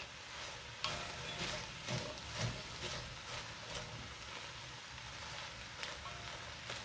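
Quiet stirring of sliced onions with a wooden spatula in an enamelled cast-iron pot, with irregular soft scrapes and knocks against the pot as the onions dry-roast without oil.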